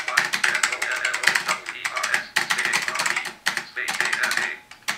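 Rapid clicking of computer keyboard keys typed one-handed, with a fast synthetic screen-reader voice (JAWS) speaking over the keystrokes almost without pause.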